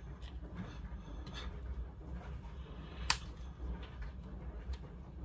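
Faint scattered clicks and taps from laptop parts being handled, with one sharper click about three seconds in, over a low steady hum.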